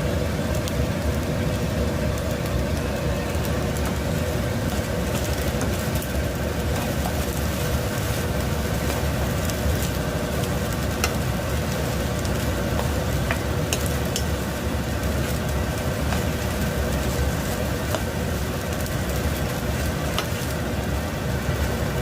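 Fried rice with scallops and eggs sizzling as it is stir-fried in a pan, with scattered sharp crackles and ticks over a steady low rumble and hum.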